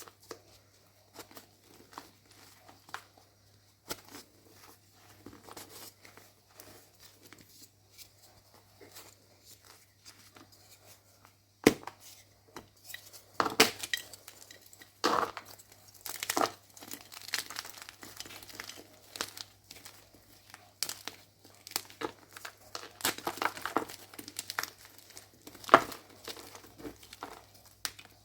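Gym chalk blocks being crushed and crumbled, dry crunching and crackling. Faint, scattered crumbles for the first half, then a sharp snap about twelve seconds in and louder, denser crunches after it.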